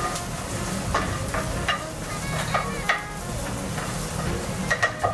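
Chopped onions and garlic sizzling in oil in a skillet while being stirred, the utensil scraping against the pan several times.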